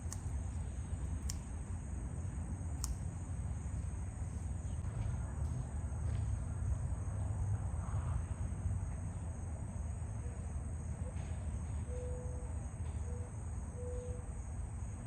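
Insects trilling in a steady, high-pitched chorus over a low outdoor rumble. Near the end a bird gives a few short, low hoots.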